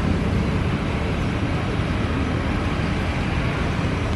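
Steady engine noise, an even rumble with hiss that holds unchanged throughout.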